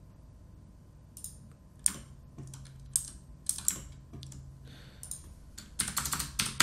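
Computer keyboard keys tapped now and then, with a quick run of keystrokes near the end, over a faint steady hum.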